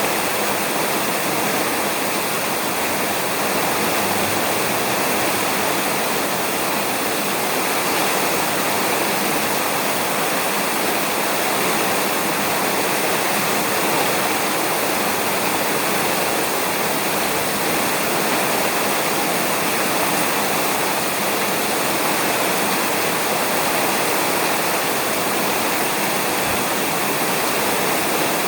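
Steady, heavy rain falling on a roof: a dense, even hiss with no breaks.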